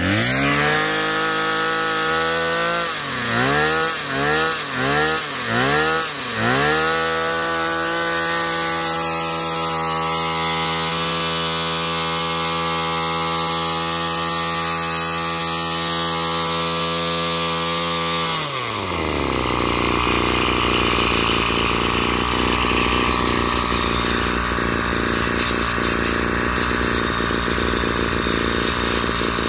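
Hitachi 24cc two-stroke brush cutter engine blipped up and down about six times with the throttle, then held at high revs for about eleven seconds, then dropping back to a steady idle.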